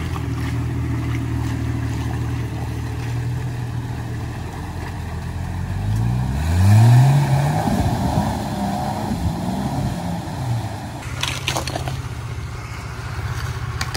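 Jeep Cherokee XJ engine idling, then revving up about six seconds in as it drives into a flooded trail crossing, with water splashing around the wheels. The engine note then wavers unevenly as it pushes through the water.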